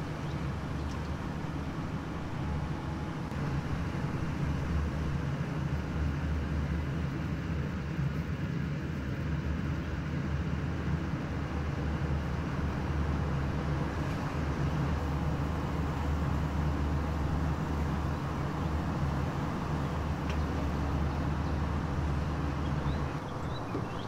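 Steady low hum with a hiss over it, from the stove while rasam heats in a steel pot. It drops away about a second before the end.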